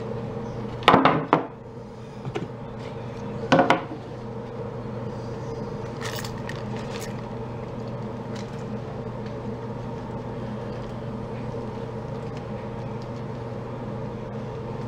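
A steady low hum throughout, with a few sharp knocks and clatters: two close together about a second in, one near three and a half seconds in, and lighter clicks after, as of wood and tools being handled.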